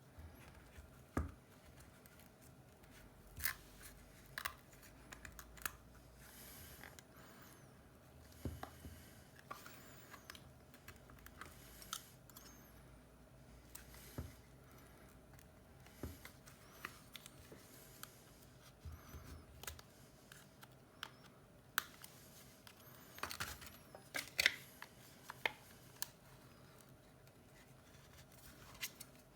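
Small hand tools and iPhone 7 parts being handled during a screen repair: scattered light clicks, taps and short scrapes with soft rustling between them, busiest a little past the middle.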